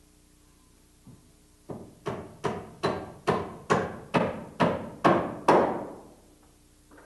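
A hammer driving nails to fasten a hardened-steel striker plate onto a board over the gas tubing. There is a light tap, then about ten even blows, roughly two a second, each ringing briefly.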